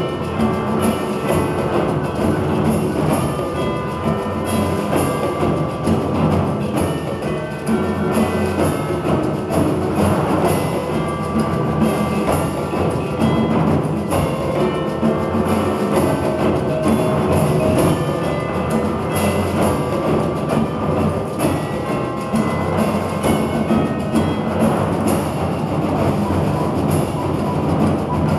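Percussion ensemble playing a rhythmic piece, timpani and drums underneath, with a running pattern of sharp clicks and short pitched notes on top.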